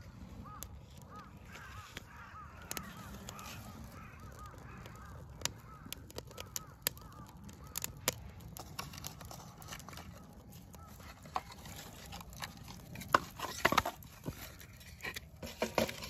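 Small fire of dry leaves and twigs crackling in a metal fire pit, its sharp pops growing denser and louder in the last few seconds. A bird calls over and over, about twice a second, through the first few seconds.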